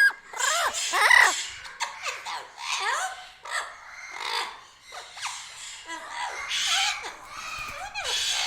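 Parrots calling: a rapid run of harsh squawks and short calls that slide up and down in pitch, one after another with hardly a pause.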